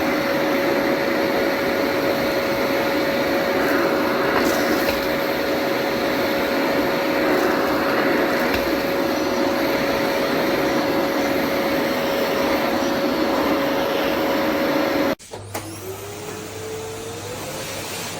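Eureka WhirlWind bagless cylinder vacuum cleaner running steadily, a loud rushing sound with a constant whine. Near the end it cuts off suddenly, giving way to a quieter hum with a whine that rises in pitch.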